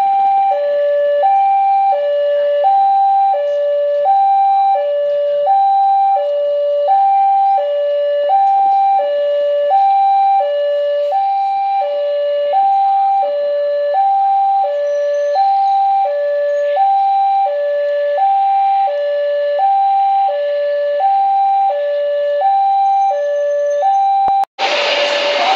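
A two-tone hi-lo siren switching steadily between a higher and a lower note, about one high-low cycle a second. A second before the end, a sudden loud burst of noise cuts in over it.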